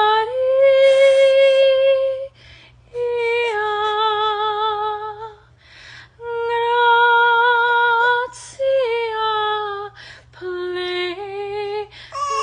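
A woman singing opera in a high soprano voice: long held notes with a wide vibrato, in about five phrases broken by short pauses for breath.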